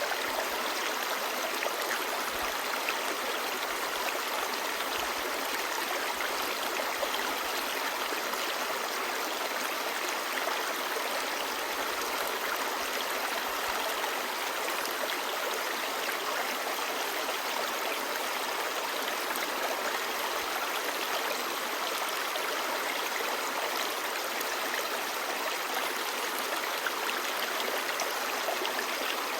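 Clear shallow stream babbling steadily over stones, an even rushing wash of water with small splashes.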